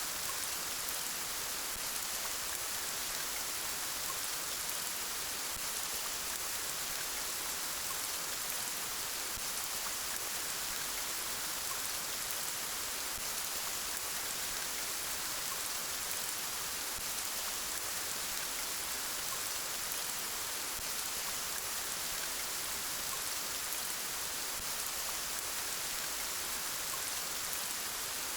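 Steady gentle rain falling, an even hiss of drops on surfaces with no let-up.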